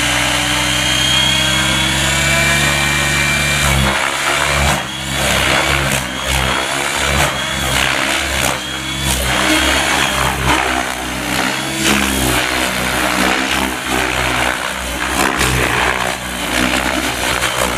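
Radio-controlled model helicopter flying at low head speed: a steady motor whine and rotor hum for about four seconds, then pitch and loudness swinging up and down repeatedly as it is put through aerobatic manoeuvres.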